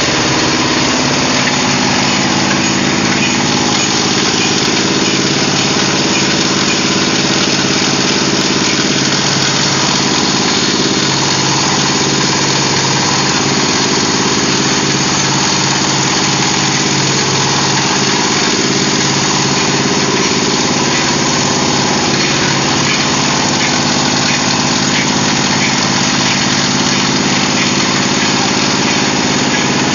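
Diesel engine of a plastic shredder running steadily at a constant speed, driving the machine.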